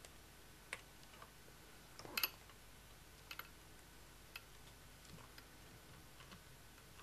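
A few small clicks and taps from hands working at the back of a Canon XF100 camcorder, pushing a headphone jack into its socket. The loudest click comes about two seconds in.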